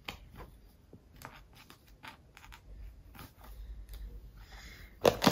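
Plastic pens and highlighter markers clicking and tapping against each other as they are handled and slotted into a fabric pencil case, with light rustling, and louder handling noise near the end.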